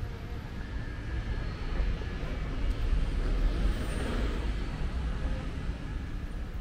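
Outdoor city ambience: a steady low rumble of traffic, swelling briefly about four seconds in as something passes.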